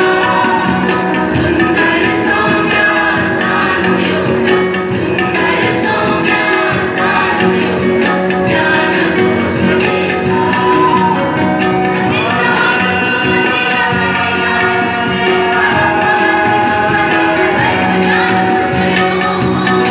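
Mixed choir of men and women singing a college anthem together, in long held notes that shift in pitch.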